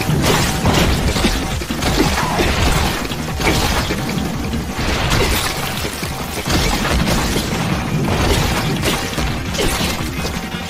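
Anime fight sound effects: a dense run of crashes, impacts and whooshes, about one a second, with music underneath.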